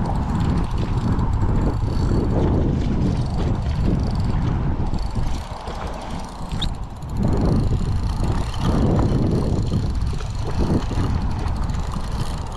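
Wind buffeting the microphone, a loud gusty low rumble that eases off briefly about six seconds in and again near ten seconds.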